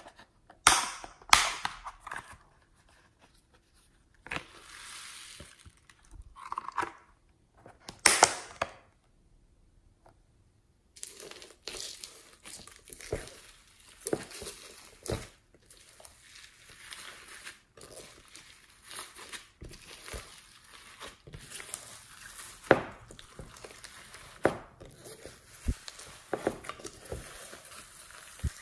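Foam beads crackling and popping as hands knead and squeeze them into slime in a glass tray. A few separate loud crinkly sounds come in the first ten seconds, then from about eleven seconds on a dense, continuous crackle and squish.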